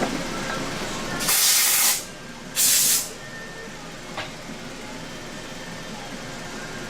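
Two short bursts of loud hiss, the first just under a second long and the second about half a second, over a steady background; a faint click follows about a second later.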